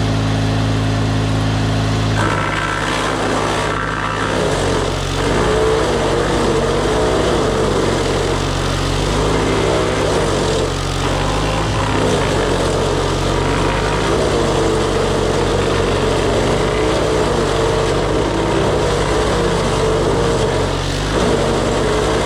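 DR wood chipper's small gas engine running steadily. Its note shifts about two seconds in.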